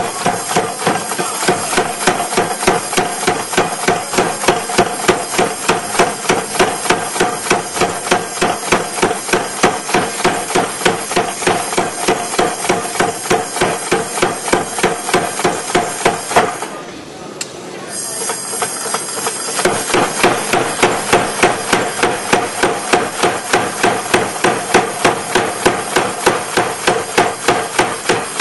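Blacksmith's hammers striking steel on an anvil while forging tongs, a fast steady rhythm of about three to four ringing blows a second. A short pause comes about two-thirds of the way through, then the hammering resumes.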